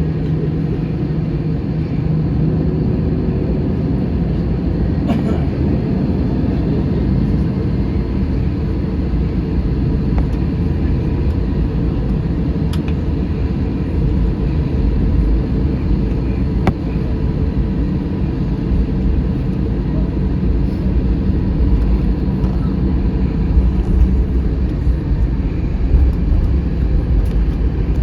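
Cabin noise inside a Delta Airbus A321 on the ground, most likely while it taxis: a steady low rumble of the engines at low power and the rolling aircraft, with a steady hum underneath and a few light clicks.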